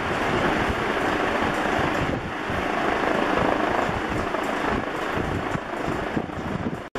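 1980 4 Saisons Industriel 90 cm ceiling fan with four curved metal blades spinning on high speed, at roughly 360 to 380 RPM, with a steady rush of moving air that buffets the microphone. The sound cuts out for an instant near the end.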